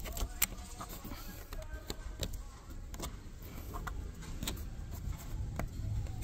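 Fingertips tapping and pressing on the plastic slats of an Opel Crossland's front grille, giving a handful of scattered light clicks over a steady low rumble.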